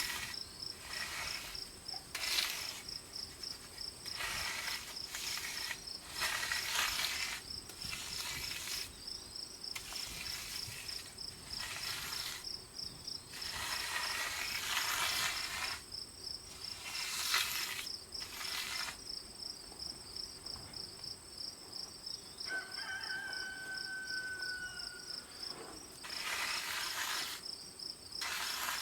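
Insects trilling steadily in a fast, even pulse throughout. Over it come repeated scraping strokes, each lasting about a second, with a pause of a second or two between them.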